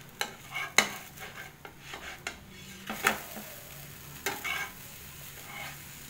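A spatula scraping and knocking against a nonstick pan as an uttapam is lifted and flipped, with several sharp clicks in the first four and a half seconds, loudest near the start and about three seconds in. The batter pancake sizzles faintly in the pan.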